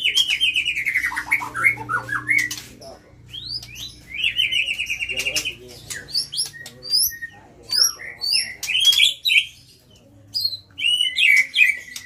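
White-rumped shama (murai batu) singing hard and without let-up ("gacor"): a rapid, varied stream of whistles, falling and rising trills and sharp clicking notes, opening with a long trill that falls in pitch.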